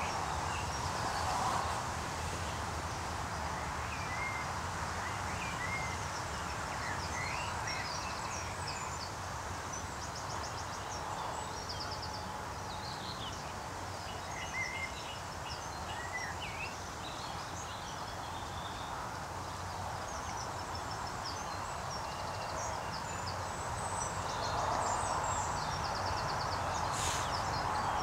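Outdoor field ambience: a steady background rush, with many small bird chirps and calls and a couple of brief rapid high trills scattered throughout.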